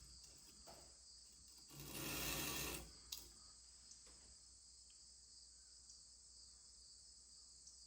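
Quiet room tone with a steady high hiss. About two seconds in comes one brief rustling scrape lasting about a second, then a single click: equipment being handled.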